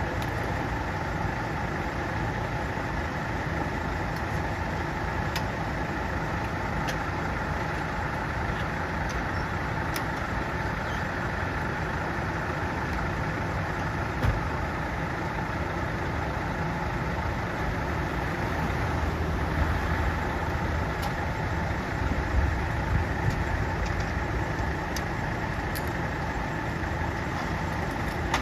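Fire-service vehicle's engine idling steadily, with a few light clicks and a few seconds of louder engine sound about twenty seconds in.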